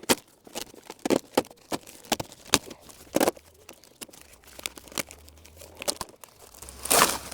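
Plastic garbage bag, serving as the door's weather shield, being pulled off and crinkling in irregular crackles and rustles, with a louder, longer tearing rustle near the end.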